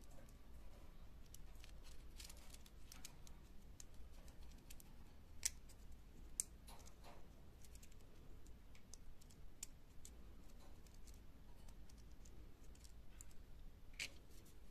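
Faint clicking and tapping of small plastic parts being handled and pressed together while a Kinder Surprise toy car is assembled by hand. A few sharper clicks stand out, two close together near the middle and one near the end.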